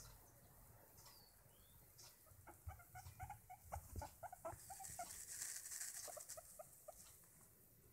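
Guinea pig giving a run of short, soft clucking notes, several a second, from about two and a half seconds in until near the end. A soft brushing, fur against the microphone, joins in about five seconds in.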